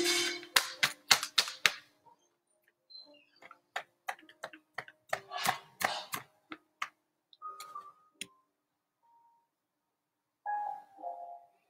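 Music dies away in the first two seconds. After that come scattered, irregular sharp clicks and taps with a few short faint tones between them.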